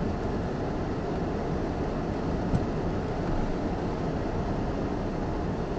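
Steady low rumble of an idling vehicle, heard from inside the stopped car's cabin, with one faint click about two and a half seconds in.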